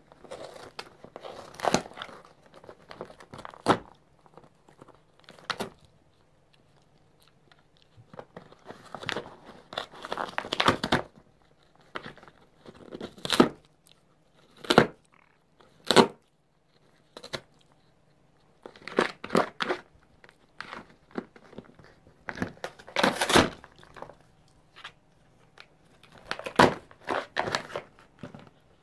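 A red fox chewing and tearing at a cardboard box with its teeth: irregular bouts of cardboard ripping and crunching, with short pauses between.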